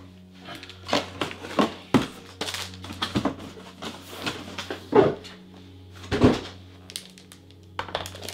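Cardboard and plastic packaging being handled and moved: irregular rustles and clicks, with two heavier thumps about five and six seconds in, over a low steady hum.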